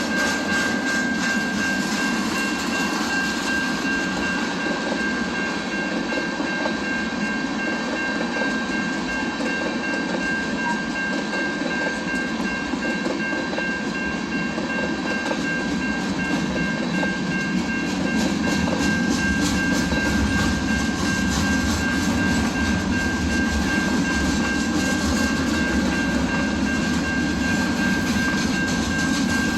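Train rolling past on the tracks: a steady rumble of wheels on rail, with a thin high-pitched tone held throughout. The low rumble gets heavier about two-thirds of the way in.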